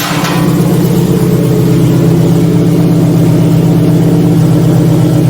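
Subaru STI's flat-four engine idling steadily through its Tomei aftermarket exhaust while a leak at an exhaust joint, marked by carbon traces, is being hunted down. A short hiss sounds right at the start.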